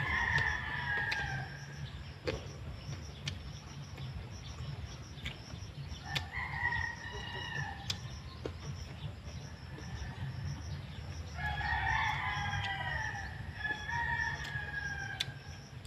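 Rooster crowing about four times, each crow a drawn-out call of a second or more that falls slightly in pitch at the end, with two crows close together near the end.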